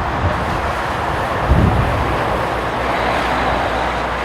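Continuous jet roar from the Boeing 777-300ER's GE90 engines, with a faint high whine coming up about three seconds in. Gusts of strong wind buffet the microphone with low thumps, once just after the start and again about a second and a half in.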